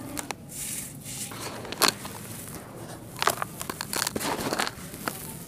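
Dry red dirt crumbled in the hands and falling back into a plastic tub: gritty crunching with a few sharp crackles and a hiss of sifting grains.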